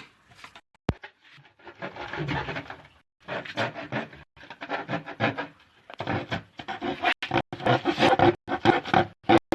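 A blade cutting through a dustpan in quick, rough, rasping strokes with a squeaky ring, in irregular runs that grow louder towards the end.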